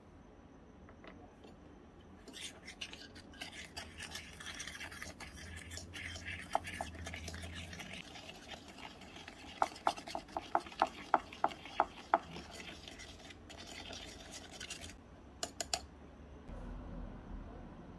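A small spoon stirring and scraping sugar and oil in a tiny stainless-steel bowl, with a quick run of about nine light clinks in the middle as the spoon knocks the bowl, and a few more clinks near the end.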